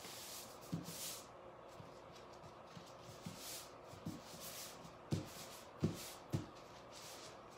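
Hands smoothing a large stencil sheet flat against fabric on a table: soft rubbing and rustling, with a few light thumps as it is pressed down.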